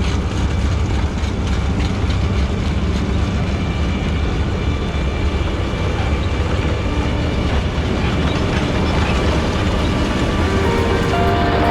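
Claas Arion tractor running under load with a Welger baler working: a steady engine drone with machinery clatter. Music comes in near the end.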